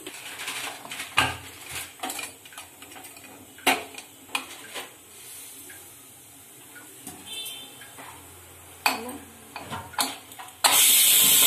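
Aluminium pressure cooker being closed: a series of sharp metal clinks and knocks as the steel spoon and the lid are handled, the lid fitted and the handles locked together. Near the end a loud hiss lasting about a second, which cuts off sharply.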